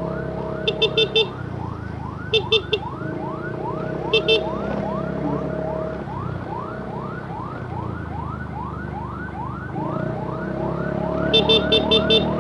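Ambulance siren wailing in a fast yelp, about three rising sweeps a second. Bursts of two to five quick horn toots come near the start, twice more in the first few seconds and again near the end, and are the loudest sounds, over low road noise.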